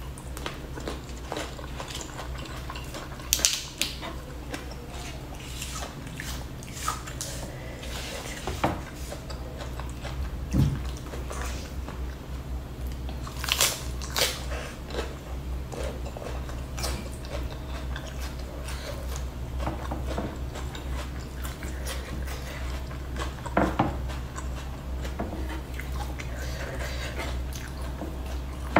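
Close-up chewing and biting of food eaten by hand: rice, fried milkfish and raw green vegetables. There are several sharp crunches, and a steady low hum runs underneath.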